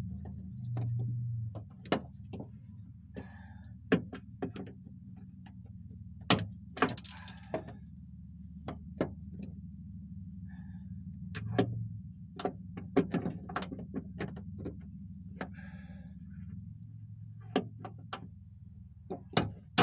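Irregular sharp clicks, taps and rattles of metal and plastic as the door latch assembly and its linkage rods are worked loose inside a 1999 Toyota Camry's door shell, over a steady low hum.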